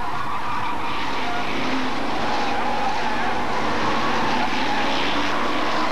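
Engines of a pack of Hot Stox oval-racing cars running together round the track, a steady, even din with no single sharp event.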